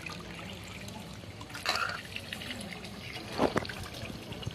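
Potatoes being washed by hand in water: water sloshing and trickling, with two louder splashes, about one and a half seconds in and again about three and a half seconds in.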